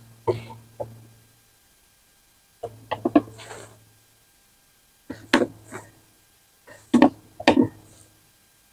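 Hard objects clacking and knocking on a plywood worktop as a metal runner and small parts are set down and pressed into place, in four short clusters of clicks with quiet gaps between.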